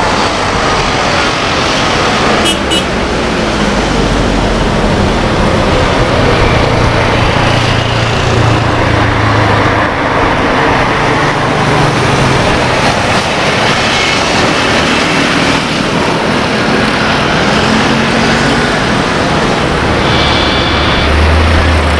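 Jet engine noise from an Airbus A320-216 and its CFM56 engines, running steadily as the airliner rolls out and slows on the runway after landing. There is a faint short chirp about two and a half seconds in, and a low hum comes in near the end.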